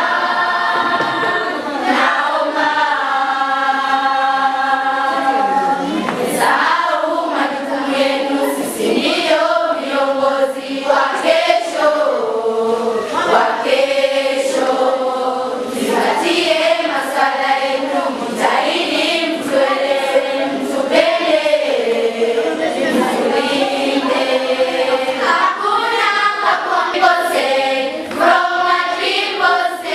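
A group of children singing together as a choir, with long held notes and no break in the song.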